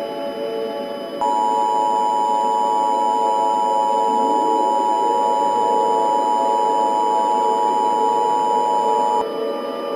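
Emergency Alert System two-tone attention signal: two steady tones sounding together, switching on about a second in and cutting off abruptly about eight seconds later, over a steady background drone. It marks an emergency message about to follow.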